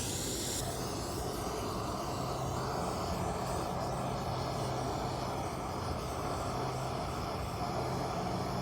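Steady background rumble with a constant low hum, and a brief high hiss fading out in the first half second.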